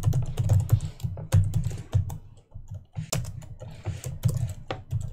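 Typing on a computer keyboard: a fast run of keystroke clicks, each with a dull thud, broken by a pause of about half a second a little past the middle.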